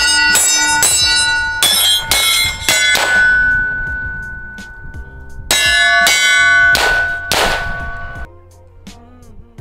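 300 Blackout bullets striking steel plate targets, each hit a sharp clang that rings on like a bell. There are two quick volleys: about seven hits in the first three seconds, then about five more after a pause.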